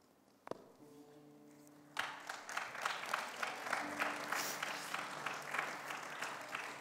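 Audience applauding, starting suddenly about two seconds in after a near-quiet pause, with many separate claps.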